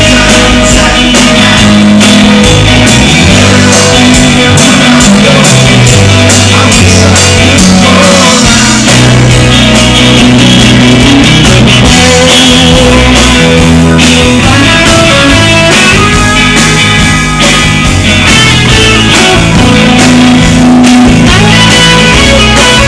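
Live rock band playing: electric guitars, bass guitar and drum kit, loud and continuous.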